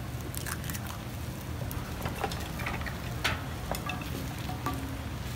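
Scattered light clicks and taps as an egg is cracked open over a jianbing crepe on a hot griddle, then a wooden-handled spatula spreads the egg across the griddle. A steady low hum runs underneath.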